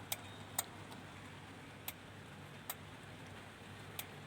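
Power relay in a Denon AVR-2113 AV receiver clicking, five sharp clicks, some in pairs, over a faint steady hum. The receiver keeps dropping into protection instead of switching on, and each relay click pulls its 5.2 V supply down.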